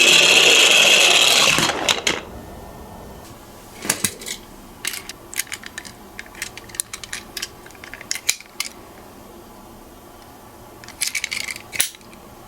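Toy minicars rolling down a hard slope: a loud rattling roll for about two seconds, then scattered light clicks and clacks of small hard toys knocking together, and another short rattle near the end.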